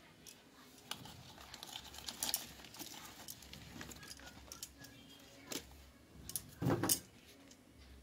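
Light clicks, knocks and rustles of vegetables being picked out of a plastic basket and set down in a glass refrigerator crisper tray, with a louder thump near seven seconds in.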